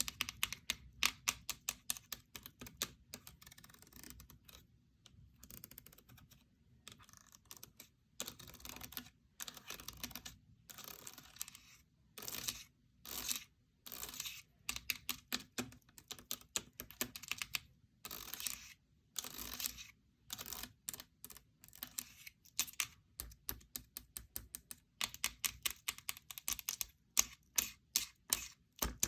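A handmade paper fidget board being played with by hand: runs of quick clicks and taps from its paper pieces, broken by short spells of sliding or rubbing.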